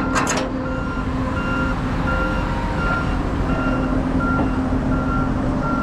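Vehicle backup alarm beeping steadily, about two beeps a second, over the steady low drone of a truck engine running.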